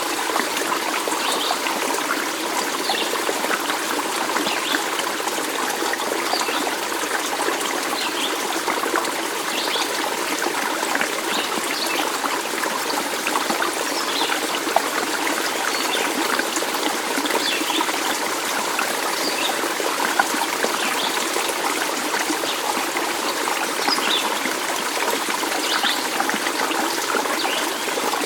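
Water running and trickling in a stream, a steady continuous rush, with faint short high chirps every second or two.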